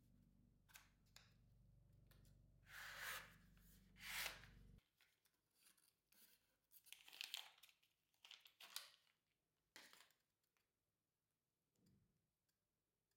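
A chocolate bar's paper and foil wrapper being torn open and peeled off in a series of short rips and crinkles, over a low hum that cuts off suddenly about five seconds in.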